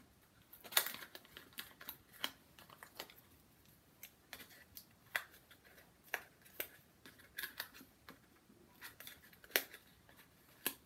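Irregular light clicks, taps and crackles of a small kraft cardboard box being handled and the paper backing being peeled off the double-sided tape on its base.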